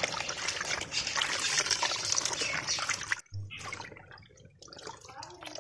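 Hands swishing and rubbing mahua flowers in a basin of water to wash them, with steady splashing and sloshing. About three seconds in the splashing cuts off abruptly and gives way to quieter, scattered drips and small splashes.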